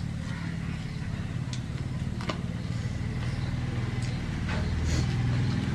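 A steady low rumble in the background, with scattered sharp clicks and smacks from two people eating chicken and rice by hand off metal plates.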